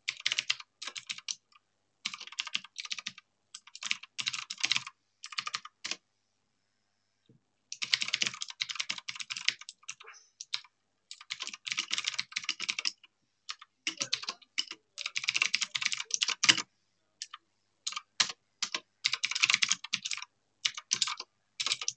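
Typing on a computer keyboard: quick runs of keystrokes broken by short pauses, the longest about a second and a half.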